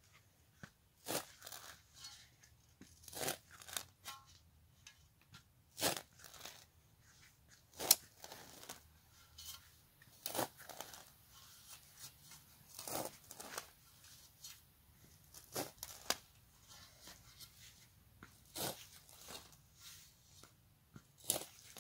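A metal spade blade cutting into dead turf and soil, a crunching, tearing stroke every second or two, about a dozen in all, as old grass roots are cut and the sod is dug out.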